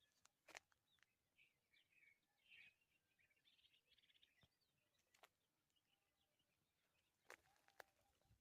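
Faint outdoor birds chirping in short quick notes for a few seconds, with a few soft clicks now and then.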